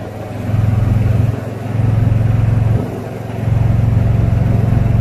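Golf cart's motor running as the cart drives along the road, a steady low hum that drops away briefly at the start, about a second and a half in, and again around three seconds.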